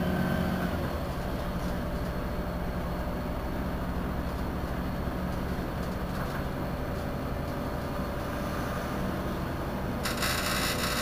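Irisbus Citelis 12 city bus engine idling steadily while the bus stands still. A burst of hiss comes in near the end.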